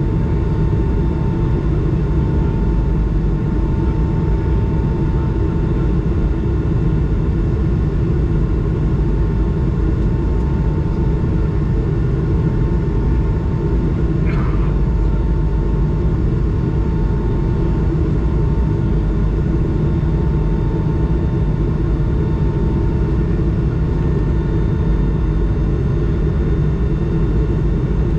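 Airbus A220 cabin noise while climbing out after takeoff: a steady, loud low drone from the Pratt & Whitney PW1500G geared turbofan engines and the airflow, with a faint steady whine above it.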